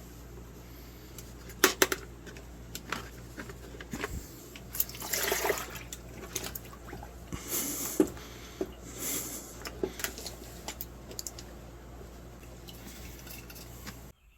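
Intermittent bursts of splashing or spraying liquid, about half a second each, among light clicks and knocks, over a steady low hum.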